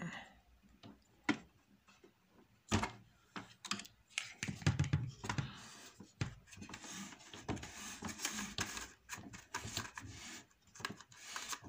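A few sharp clicks from handling the plastic print head carriage of an Epson XP-2100 inkjet printer, then a dense run of rustling, tapping and clicking as a strip of paper is worked back and forth under the print head to blot the flushed ink.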